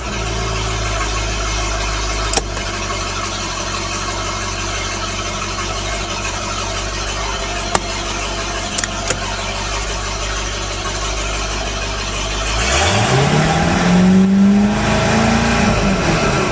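Mercury MerCruiser 5.7 V8 boat engine idling steadily after a jump start. About three-quarters of the way in it is revved up, held briefly and let back down toward idle near the end. A few sharp clicks sound in the first half.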